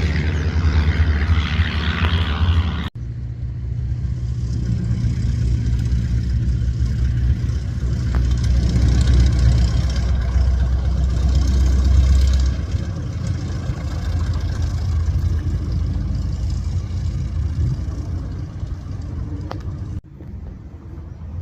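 A light propeller aircraft's piston engine running steadily, its low drone changing about midway. The sound cuts off abruptly twice.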